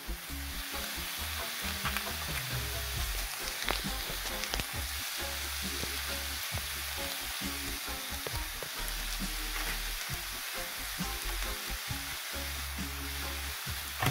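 Sliced peppers, onions and mushrooms sizzling steadily in hot oil in a skillet as fresh broccoli florets are dropped in by hand, with scattered light taps of the pieces landing.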